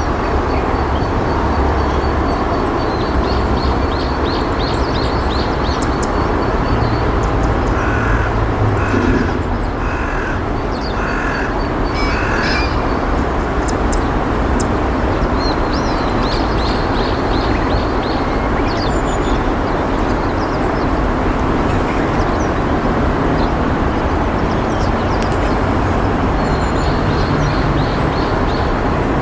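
Steady rushing background noise. About a third of the way in, a bird gives five harsh calls, each about a second apart, and small birds chirp faintly throughout.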